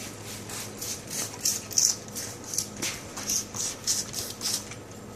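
Plastic trigger spray bottle of water squeezed again and again, a quick run of short hissing spritzes, about three a second.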